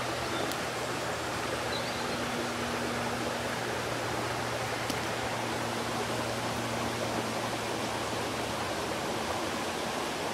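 Steady rush of stream water flowing over stones.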